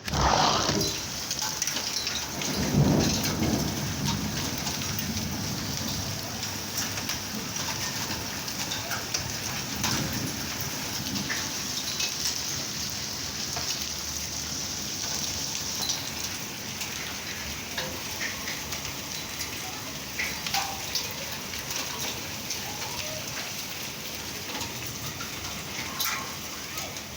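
Heavy rain pouring down steadily, with a low rumble of thunder about three seconds in and scattered drops ticking on nearby surfaces.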